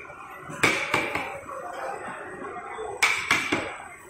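A wooden baton striking the back of a large curved chopping blade, driving it through fish into a wooden chopping block. The blows are sharp knocks with a short metallic ring: two a little after the start and three in quick succession about three seconds in.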